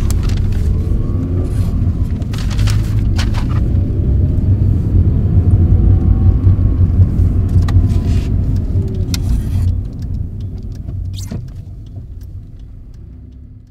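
A car driving: a steady low rumble of engine and road noise, with a few sharp knocks and clicks. It fades out over the last few seconds.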